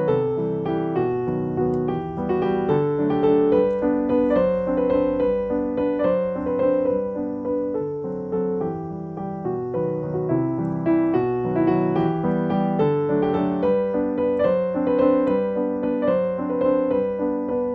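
Background piano music: a steady stream of melodic notes.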